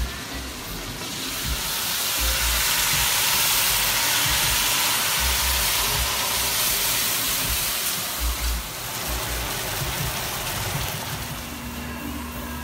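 Food sizzling in a hot frying pan with liqueur just added, a loud steady hiss of boiling liquid and steam. It swells about a second in and dies down after about eight seconds, with occasional low bumps under it.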